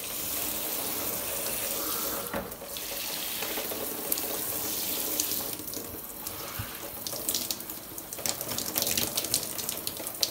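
Water spraying from a handheld shower head onto ceramic wall tile and the shower pan, rinsing off the acid cleaner. A steady hiss for about the first five seconds, then more uneven spattering as the spray moves over the surfaces.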